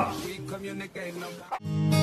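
Background music with plucked guitar, faint at first; a louder new tune with held notes starts about one and a half seconds in.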